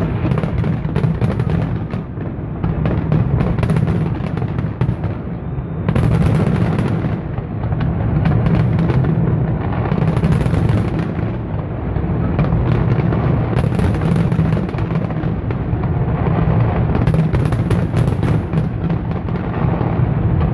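Fireworks display: a dense, continuous barrage of bangs and crackles over a deep rumble.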